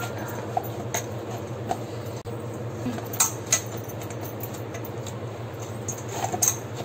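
Hands kneading warm, cooked rice-flour dough in a steel bowl, with wrist bangles clinking against each other and knocking on the bowl's rim now and then: a handful of short, sharp clicks.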